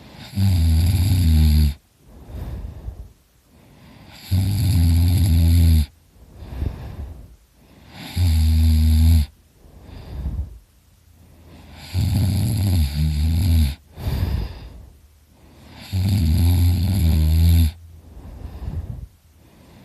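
A drunk man asleep and snoring really loud: five loud, low snores, one about every four seconds, with quieter breathing between them.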